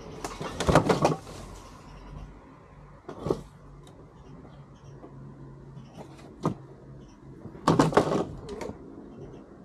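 Knocks and clatter of wooden boards being handled: a quick cluster of knocks about a second in, single knocks around three and six and a half seconds, and another cluster near eight seconds.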